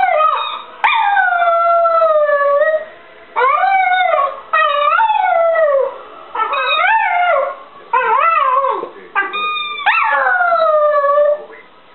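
Smooth fox terrier howling, or 'singing': about seven howls in a row, each one rising and then sliding down in pitch, a second or two long, with short breaks between them.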